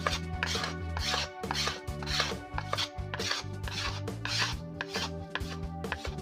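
A knife blade scraping along a length of dry bamboo, shaving off tinder in quick repeated strokes, about two a second.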